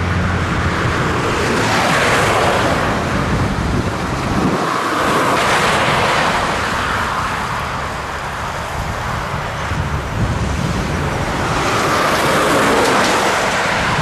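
A road vehicle on the move: tyre and wind noise that swells and fades three times, over a low engine drone.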